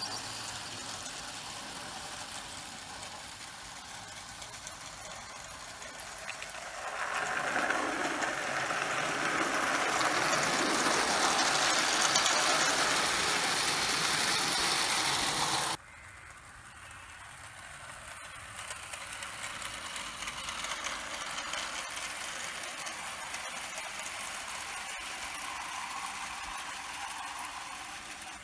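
O gauge tinplate model train, a Bassett-Lowke LMS 2P locomotive hauling small wagons, running on garden railway track: a rattling clatter of metal wheels on the rails that builds as the train comes close, cuts off suddenly about halfway through, and comes back fainter near the end.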